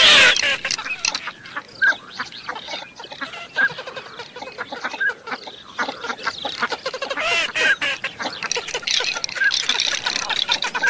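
Flock of teal ducks calling: many short high whistled pips and quacks, with a loud burst of quacking right at the start and again about seven seconds in.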